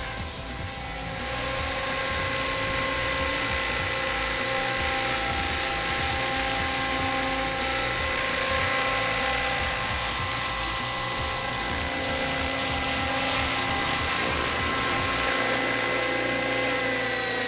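Electric RC model helicopter with T-Rex 600 mechanics running: a steady, high motor and gear whine over the rush of the rotor. Near the end the whine falls in pitch as the rotor slows down after landing.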